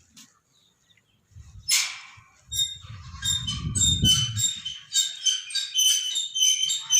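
Birds chirping busily in many short, high notes, starting about two and a half seconds in after a brief rush of noise, with a low rumble under them for a couple of seconds.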